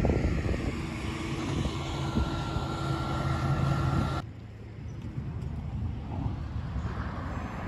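A boat engine running steadily over the water, heard as a steady hum over a noisy background. About four seconds in the sound cuts off abruptly, leaving only a quieter steady noise.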